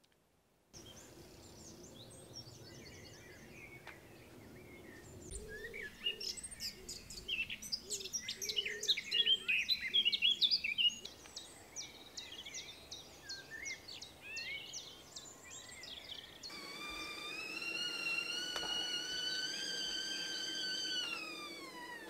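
Several birds singing at once, a dense tangle of chirps and song phrases, busiest partway through. Then a stovetop whistling kettle comes in with a steady whistle that rises slightly in pitch, then slides down and fades near the end.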